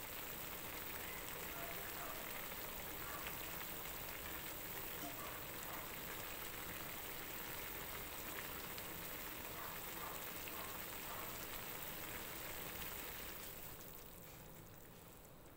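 Bamboo shoots and fried fish simmering in broth in an aluminium wok: a steady bubbling hiss with faint pops, fading out near the end.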